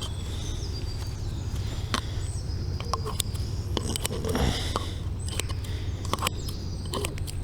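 Small clicks and rustles of fishing tackle being handled on a canal bank. Faint birdsong comes in short falling whistles over a steady low rumble.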